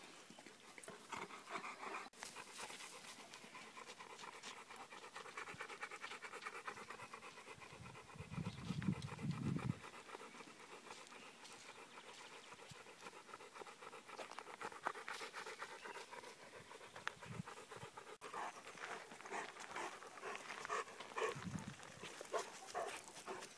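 Large dogs panting faintly, with a louder low rumbling noise for about two seconds around eight seconds in.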